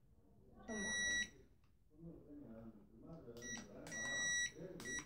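Electronic beeps from a toy mini drone's remote controller as its buttons are pressed: one short beep about half a second in, then a run of beeps from about three and a half seconds in, the longest held for about a second.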